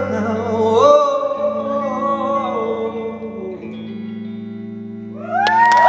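Live singer holding a final wordless wavering note over a ringing guitar chord as the song ends, the sound thinning out. About five seconds in the audience bursts into screaming and cheering.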